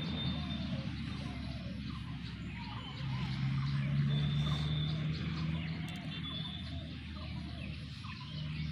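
Ducks quacking and chattering continuously in many short calls, with a low steady hum that swells about three seconds in and fades, then returns near the end.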